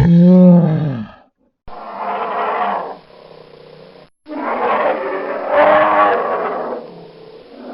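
Bear vocalising in several spliced clips. A pitched roar bends in pitch and fades out about a second in. Then come two rough, noisy growling roars, the second one longer.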